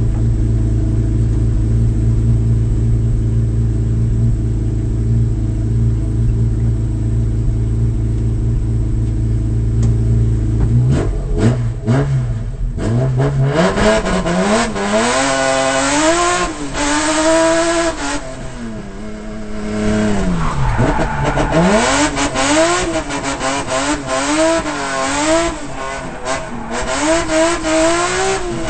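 BMW M3 engine heard from inside the stripped race cabin, idling steadily for about eleven seconds, then revving hard as the car sets off, its pitch climbing and dropping again and again for the rest of the run.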